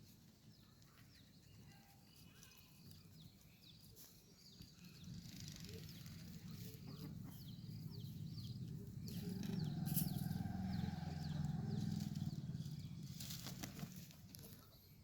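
A rooster crowing once in one long held call about nine seconds in, over small birds chirping repeatedly. A low rumble swells under them through the middle and is the loudest part.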